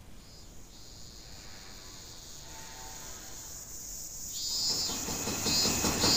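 A rushing noise with a rapid flutter swells up about four seconds in and grows loud, over faint high ringing tones earlier on.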